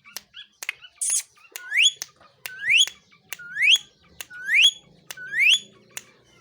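Green ring-necked parakeet making short clicks and chatter, then five rising whistles about a second apart.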